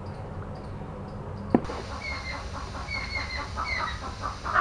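Soft wet squelches and clicks of raw beef being mixed by hand with spice paste in a metal pot, then one sharp click about a second and a half in. After the click a bird chirps repeatedly in short falling calls.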